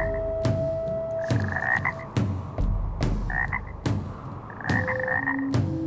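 A chorus of cartoon frogs croaking, with sharp clicks and held notes at several different pitches among the calls.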